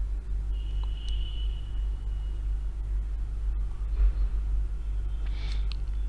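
A steady low hum, with a faint high-pitched whine for about two and a half seconds starting half a second in.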